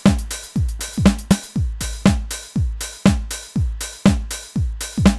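Electronic house drum pattern from Native Instruments Maschine 2 sounds triggered by MIDI in Logic: a 909 kick on every beat at 120 BPM, two a second, with 909 hi-hats, clap and snare.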